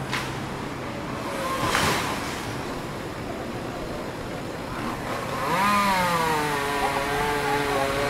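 Street traffic running steadily, with a motor vehicle's engine revving, rising and wavering in pitch, from about five and a half seconds in.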